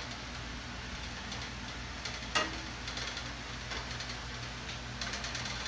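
Wooden spoon stirring vegetables in a stainless steel pan over a faint sizzle, with a sharp knock of the spoon against the pan about two and a half seconds in and small scraping ticks near the end. A steady low hum runs underneath.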